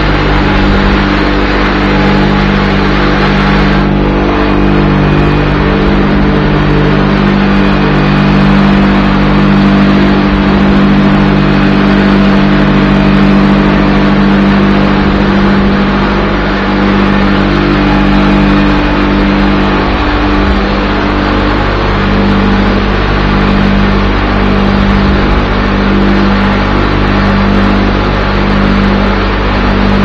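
Haiqi sawdust-fired biomass burner running: a steady mechanical drone of its blower and fire, with a low hum underneath.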